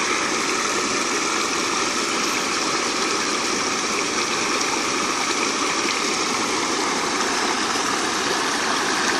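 River water rushing over and through a bamboo fence weir into rapids, a steady loud rush with no breaks.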